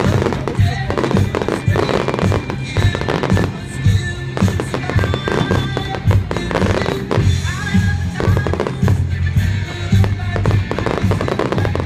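Festival fireworks bursting and crackling in quick succession, with music playing alongside.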